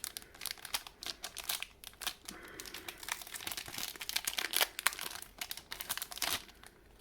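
Foil trading-card booster pack wrapper being torn open and crinkled by hand, an irregular run of crackles and rustles.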